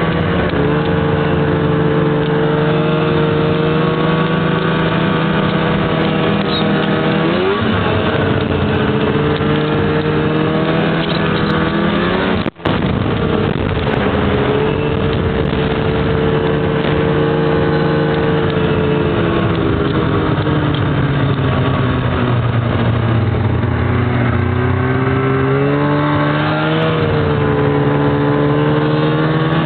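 Snowmobile engine running under way, its pitch rising and falling as the throttle changes. The sound cuts out for an instant near the middle.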